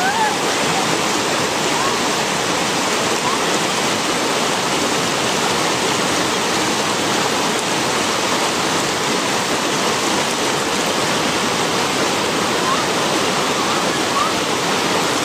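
Rocky creek water rushing steadily over stones, with a few faint short whistling sounds near the start and again near the end.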